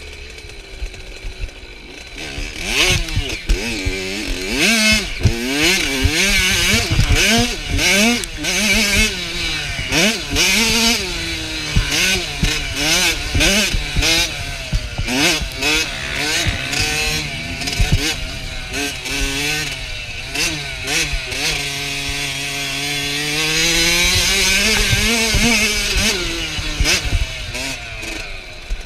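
Kawasaki KX65's small two-stroke single-cylinder engine revving hard and dropping off again and again as the bike is ridden around a dirt motocross track, with one longer held pull late on. Sharp knocks sound throughout.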